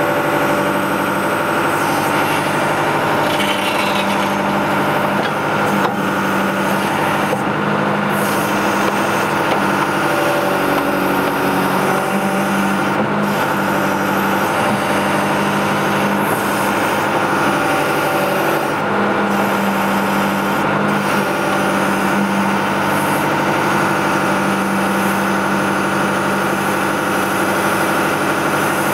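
John Deere 310D backhoe's diesel engine running steadily while the backhoe is worked in loose dirt, its note shifting slightly a couple of times as the hydraulics take load.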